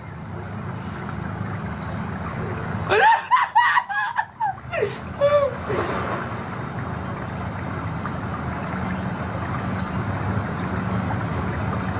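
A person laughing briefly about three seconds in, over a steady low hum.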